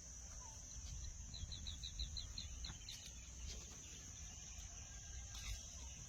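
Steady high-pitched drone of insects, such as crickets, with a quick run of about eight short high chirps a little over a second in, over a low rumble.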